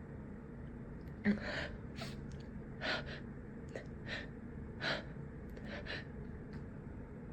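A person in a sneezing fit gasping for breath: a short sharp catch about a second in, then about six quick breathy gasps spaced over the next few seconds, the hitching breaths of a sneeze being held back.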